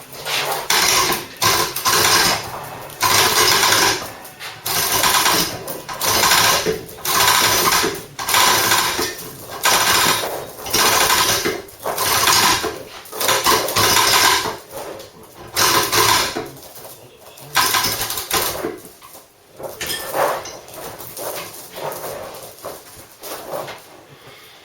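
Engine hoist being worked to lift an engine on a chain cradle, a loud creaking stroke about once a second, fading over the last few seconds.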